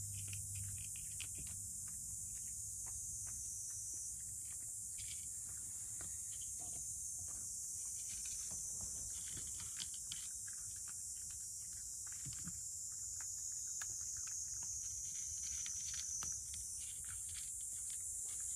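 Cat eating dry kibble from a dish: many small, irregular crunches and clicks, over a steady hiss.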